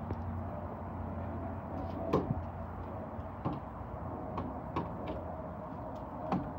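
A few scattered light clicks and knocks, the sharpest about two seconds in, over a steady low hum.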